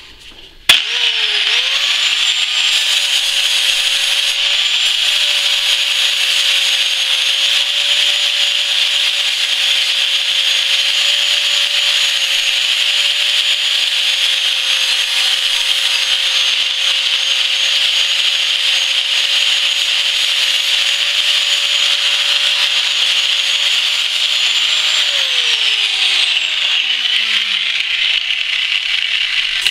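Porter-Cable 4.5-inch angle grinder with a 60-grit zirconia type 29 flap disc, starting about a second in and grinding light mill scale off a steel plate: a steady motor whine over a loud grinding hiss. Near the end it is switched off and the motor winds down with a falling whine.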